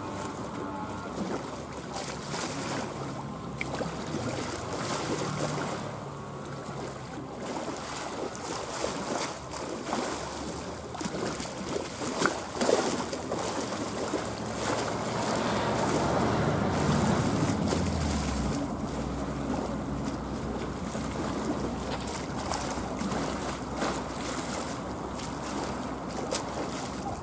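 Tugboat's diesel engine running on the water, under wind buffeting the microphone; a low engine rumble grows stronger about two-thirds of the way through. A single brief thump about halfway.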